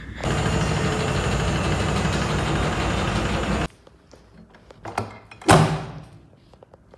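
Steady mechanical running noise of laundromat machines, cutting off suddenly after about three and a half seconds. Then quieter handling clicks and a loud clunk about five and a half seconds in as a front-loading washing machine's door is opened.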